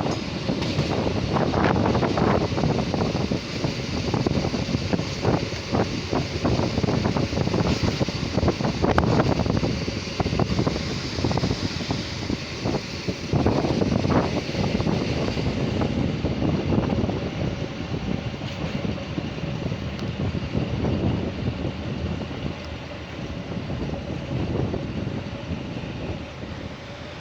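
Narrow-gauge diesel railcar running along the track, heard at an open drop-down window: a continuous rumble with wheels clattering over the rails and wind rushing past. The clatter eases and the noise drops off toward the end.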